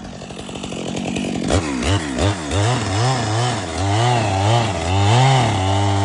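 Chainsaw engine running low at first. From about a second and a half in it is throttled up and down over and over, about two to three surges a second, as the saw works through the back cut of a tree being felled.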